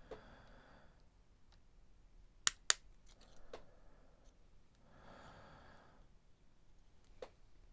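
Scissors snipping resistors off their paper-taped strip, the blades closing on the wire leads: two sharp snips in quick succession, then a single one near the end.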